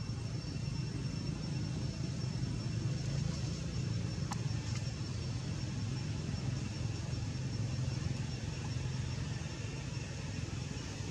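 Steady low background rumble with a faint, steady high-pitched whine above it, and a single faint click about four seconds in.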